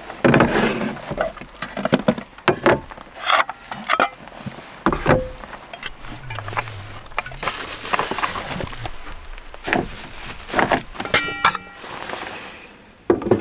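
Camp cooking gear being handled: an uneven run of knocks, clinks and rattles as containers, utensils and cookware are taken out and set down. A short ringing tone sounds near the end.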